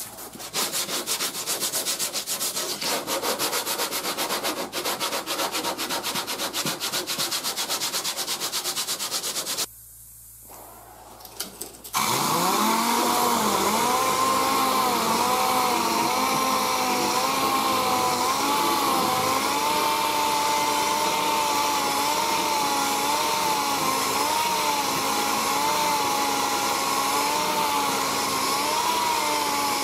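Hand sanding with a block pad over the repaired patch of a truck fender, in quick rasping strokes. After a short break, a pneumatic random-orbital (DA) sander starts and runs steadily on the panel, its whine wavering in pitch as it is pressed and moved.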